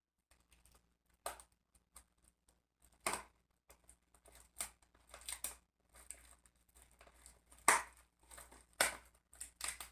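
Plastic shrink-wrap being picked at and torn off a Blu-ray case, a run of irregular crinkles and crackles, the sharpest about three seconds in and again near the end.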